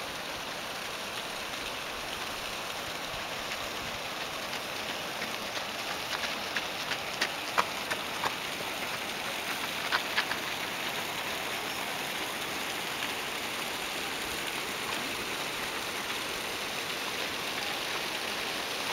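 Steady rush of the Potomac River's water over its rocky bed, an even hiss with no pauses. A few short, sharp clicks stand out briefly between about six and ten seconds in.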